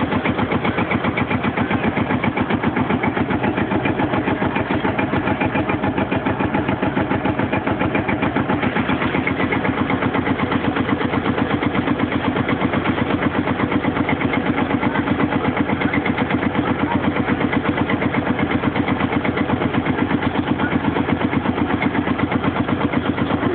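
Field Marshall tractor's big single-cylinder two-stroke diesel running steadily with a rapid, even thumping beat, belted up to a threshing machine.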